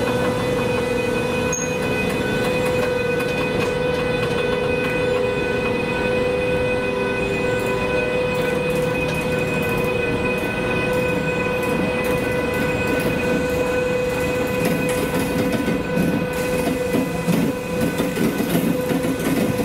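Train running, with a steady whine of several fixed tones over a rumble that grows rougher and more uneven in the last few seconds.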